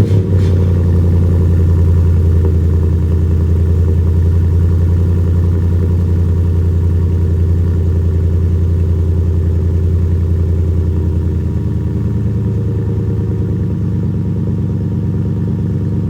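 2015 Ford F-150 engine idling steadily through a newly installed Flowmaster cat-back performance exhaust, a deep, even exhaust note.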